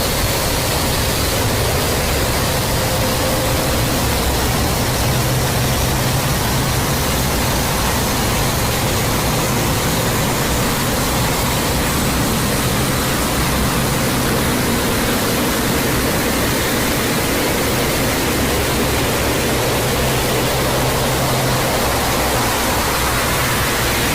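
Loud, steady rushing noise like static, spread evenly from low to high pitch, with no speech.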